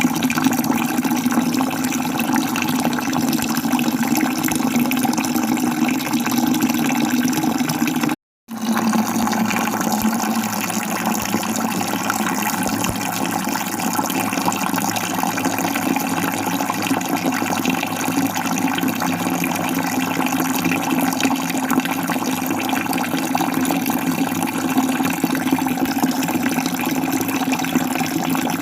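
Falling water rushing steadily, with a brief complete dropout about eight seconds in.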